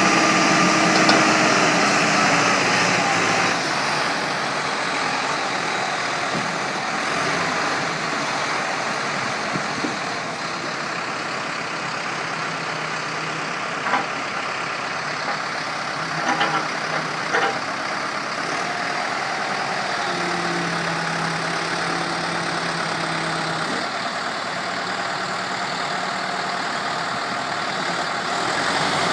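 Backhoe loader's diesel engine running steadily, easing down a little about four seconds in. A few short clicks come in the middle, and a low steady hum joins for a few seconds later on.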